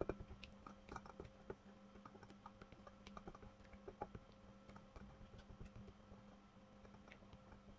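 Faint, irregular clicks and scrapes of a silicone spatula against a glass bowl, stirring softened cream cheese and melting butter in a bain-marie, over a faint steady hum.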